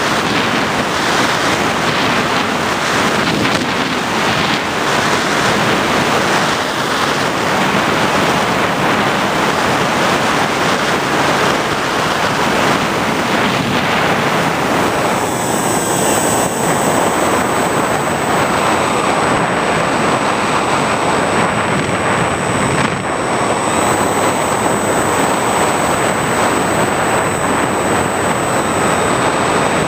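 Steady rush of wind and airflow over the onboard camera microphone of an FPV model aircraft in flight. A thin, high, steady whine joins about halfway through and holds on.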